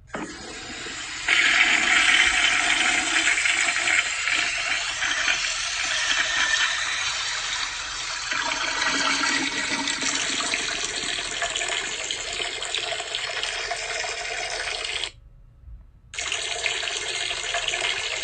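Steady rush of flowing water, growing louder about a second in; it cuts out about fifteen seconds in for a second and then starts again.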